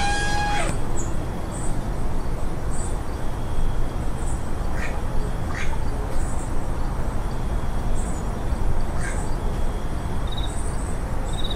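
Outdoor ambience: a steady low rumble, with faint high chirps repeating about once a second and a few short bird calls, one right at the start.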